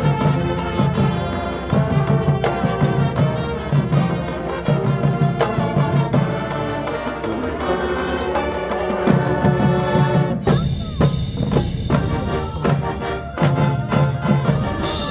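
High school marching band playing its field show: brass over a steady drum-line beat. About ten seconds in, the horns drop away for a couple of seconds under a bright wash of high sound, then come back in.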